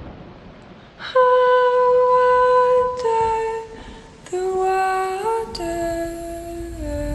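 Background music: a slow, wordless melody of long held notes that steps down in pitch a few times, close to humming or a soft wind instrument.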